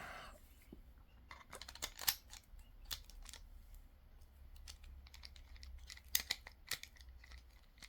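Screwdriver and small screw clicking and scraping on an aluminium padlock body as the screw is worked in, in short irregular ticks.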